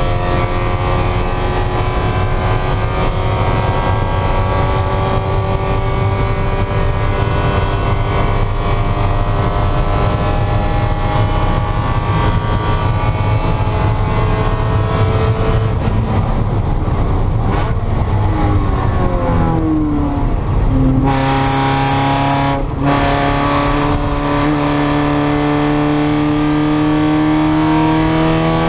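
Mazda Miata race car engine pulling hard under full throttle, its pitch climbing slowly. About two-thirds of the way through, the pitch drops in steps as the driver brakes and downshifts, then it climbs again under power.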